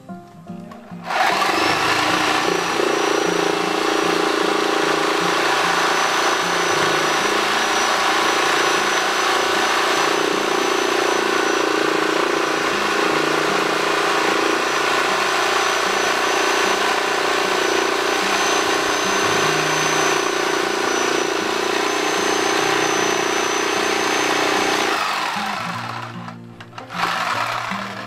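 Handheld electric power tool running while cutting a tire off a steel wheel rim: the motor spins up suddenly about a second in, runs at a steady high whine, then winds down near the end.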